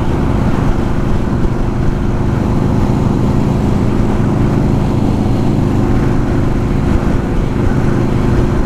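Yamaha Road Star Warrior 1700's air-cooled V-twin engine running steadily at highway cruising speed, heard from the rider's helmet together with wind and road noise. The engine pitch holds level throughout, with no revving or shifting.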